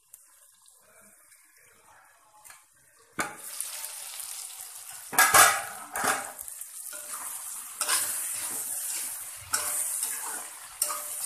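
Chicken pieces frying in oil in a kadai: quiet under the lid at first, then a sudden sizzle about three seconds in as the lid comes off. A metal spatula clatters and scrapes against the pan as the meat is stirred, loudest a little after the sizzle starts.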